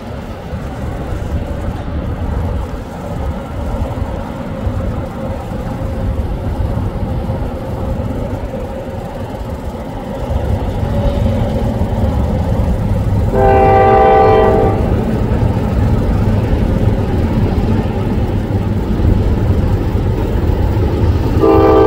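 Norfolk Southern freight train approaching, its diesel locomotives making a low rumble that grows louder about halfway through. The locomotive's multi-note horn sounds a short blast about two-thirds of the way in, and starts another just before the end.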